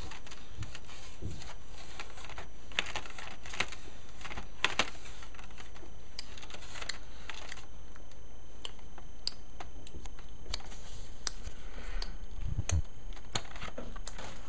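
Scattered light clicks and taps at an uneven pace over a low steady hum, with a few sharper ticks in the first few seconds.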